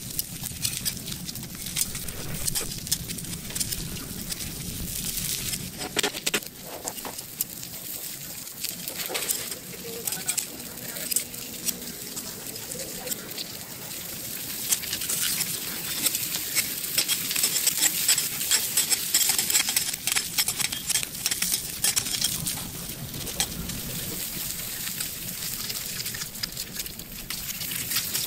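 Eggs frying in oil on a hot steel flat-top griddle: a dense crackling sizzle of spattering oil that swells louder about halfway through, with a metal spatula and tongs working the eggs on the plate.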